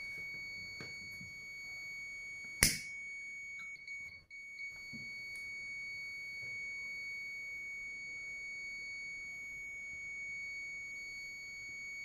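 Clamp multimeter's continuity buzzer sounding a steady high beep across a water heater cutout thermostat's pins, showing its contacts are still closed. A single sharp click comes about two and a half seconds in.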